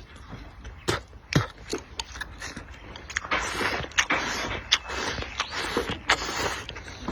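A person eating close to the microphone: sharp clicking chewing sounds and two longer hissing sucks or slurps of about a second each.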